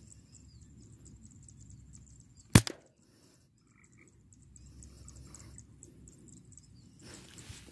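A single air rifle shot, sharp and loud, about two and a half seconds in, with a smaller knock a split second after it.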